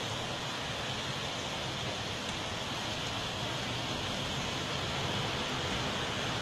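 Steady rushing noise of rainwater flooding the street.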